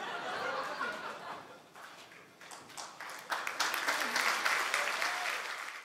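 Theatre audience reacting with voices, then applauding. The clapping starts about two and a half seconds in and builds to full applause over the last half.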